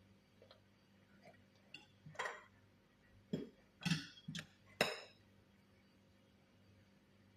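A few clinks and knocks of kitchenware being handled, about five in three seconds, the last ones the loudest, over a faint steady hum.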